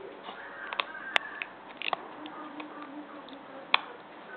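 Plastic Lego pieces clicking as they are handled and snapped together: a scatter of short sharp clicks, two of them louder, one just after a second in and one about three-quarters of the way through.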